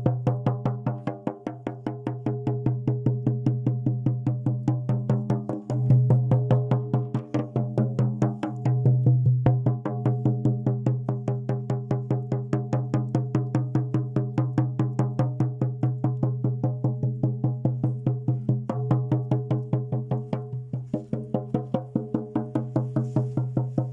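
Music: a steady low droning tone rich in overtones, plucked or struck in a fast even pulse of about four strokes a second.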